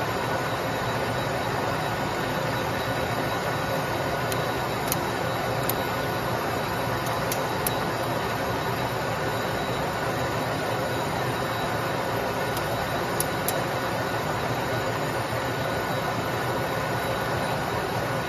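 Metal lathe running steadily while turning a large steel bearing body, an even machine noise with a few faint steady tones. A handful of brief sharp ticks come through about 5, 6, 8 and 13 seconds in.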